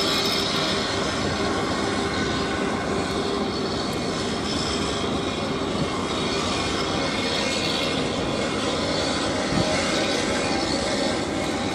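The RORO cargo ship Nanotsu's diesel engines running with a steady drone as the ship passes under way, with an even hiss over it and a few faint steady tones.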